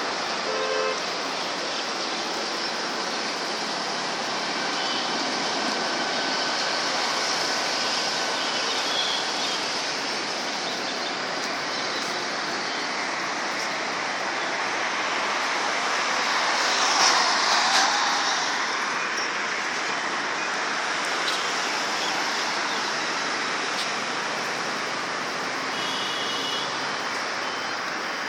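Steady road and traffic noise heard from a moving vehicle, with a louder swell about two-thirds of the way through, as of a vehicle passing close by.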